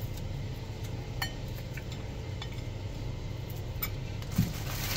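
Scattered small clicks and light knocks of fingers and fish pieces against a ceramic plate as smoked fish is flaked by hand and the bones picked out, with a firmer knock near the end, over a steady low hum.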